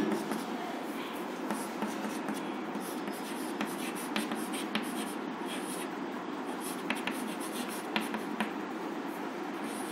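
Chalk writing on a blackboard, forming a word letter by letter, with a few short sharp taps of the chalk against the board.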